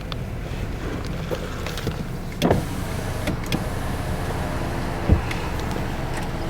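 Car idling, heard from inside the cabin, while an electric power window motor hums as the driver's window is lowered, from about two and a half seconds in. A single thump comes about five seconds in.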